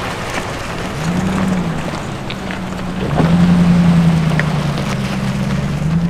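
An SUV's engine running, its low note rising and falling as the throttle changes, over a steady rush of tyre and road noise.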